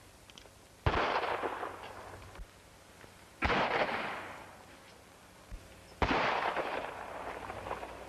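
Three gunshots about two and a half seconds apart, each trailing off over a second or so.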